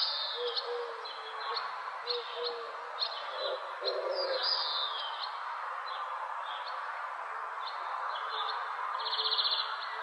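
Several birds calling in bushland: short high chirps, down-slurred whistles and short low repeated notes, over a steady background hiss. A fast, buzzy trill comes near the end and is the loudest call.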